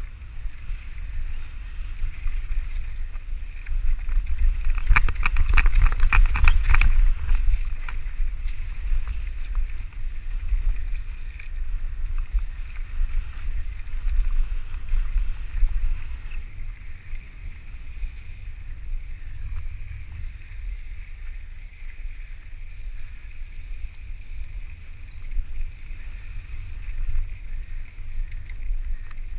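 Mountain bike being ridden on a dirt trail, with a steady low rumble of wind on the microphone. About five seconds in, a burst of clattering and rattling lasts around two seconds as the bike goes over rough ground.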